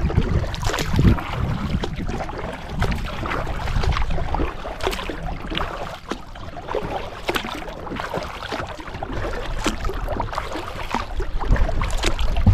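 Wind buffeting the microphone, with water splashing and lapping against a plastic kayak's hull as it moves across choppy water. Irregular small splashes run over a steady low rumble.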